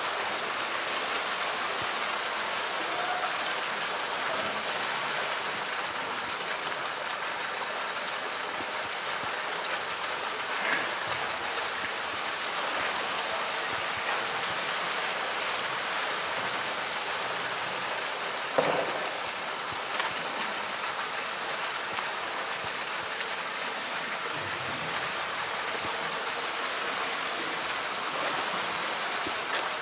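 Steady rush of running water in a polar bear's pool, with a few brief splashes as the wet bear climbs onto the ledge and back into the water, the loudest about two-thirds of the way through.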